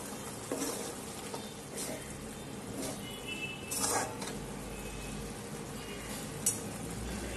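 Spiced yogurt-and-water gravy cooking in an aluminium kadai with a steady low hiss, stirred with a steel ladle that scrapes and knocks against the pan a few times. The strongest scrape comes about four seconds in, and there is a sharp clink a little before the end.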